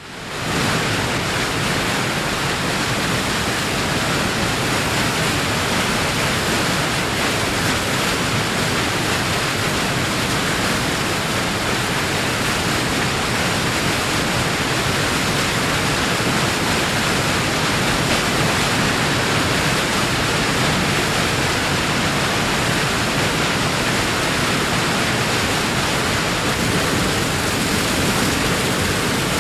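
Waterfall: a steady, unbroken rush of falling water, fading in over the first half-second and then holding constant.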